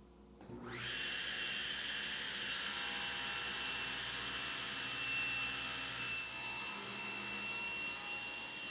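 SawStop table saw motor spinning up with a quick rising whine about half a second in, then running steadily. Its blade rips a thin cleanup strip off a mahogany table-leg blank to square it, adding a hissy cutting noise in the middle of the run.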